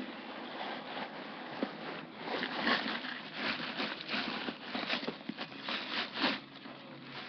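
White wrapping material crinkling and rustling as gloved hands handle it at a Louis Vuitton monogram canvas handbag, with scattered handling knocks. The rustle is busiest from about two seconds in until shortly before the end.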